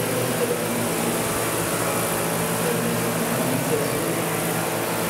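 Large Vario CH-47 Chinook scale model helicopters with tandem rotors running steadily in flight, a steady hum with rotor whir.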